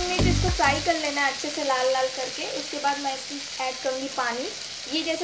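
Cubed potatoes frying in mustard oil in a kadhai, a steady sizzle.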